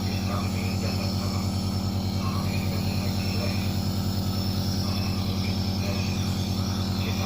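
Compressor nebulizer's pump motor running: a steady hum with a fast, even pulse.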